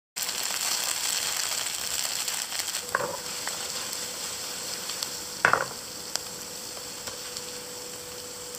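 Sweet corn cakes sizzling as they fry in oil in a pan, the hiss easing off slightly. Two short clatters of utensils against the pan come about three and five and a half seconds in, and a faint steady hum comes in around the first of them.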